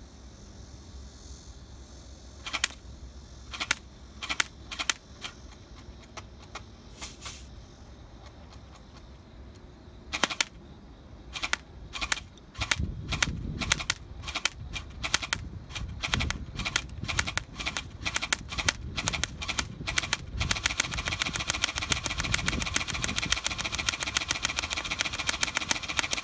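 Academy GSG522 electric airsoft gun firing BBs: sharp single shots a second or more apart at first, coming faster from about ten seconds in. From about twenty seconds in a dense, continuous rattle takes over.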